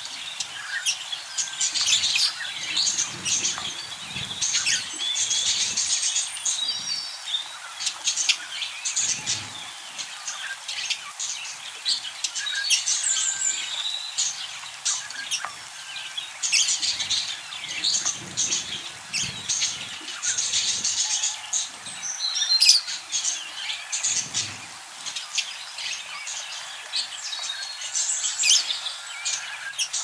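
A flock of budgerigars chattering and warbling without pause, a dense mix of quick high chirps and trills from many birds at once.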